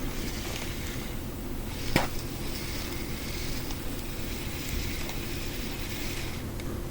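Shimano 21 Twin Power SW spinning reel being cranked, giving a steady abnormal noise from inside the reel, with one sharp click about two seconds in.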